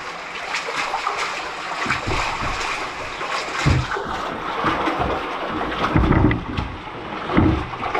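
Feet splashing through shallow water and a kayak being towed along inside a round culvert pipe, with a few heavy low thuds every second or two.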